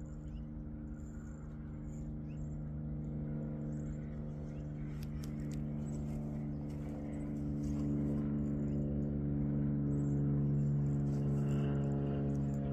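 A steady low droning hum at one fixed pitch, slowly growing louder, with faint high chirps over it.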